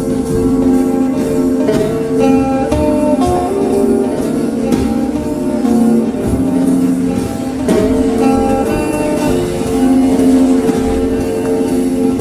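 Background music led by guitar, a melody moving note by note over held lower tones.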